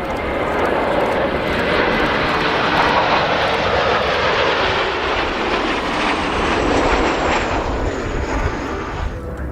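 Jet noise from Blue Impulse Kawasaki T-4 jet trainers: a loud, steady rush of engine noise with a thin high turbine whine that falls slightly in pitch. The noise swells in the first second and cuts off abruptly near the end.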